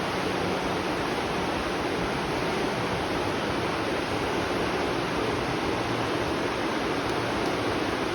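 Steady rush of flowing spring water, an even, unbroken hiss.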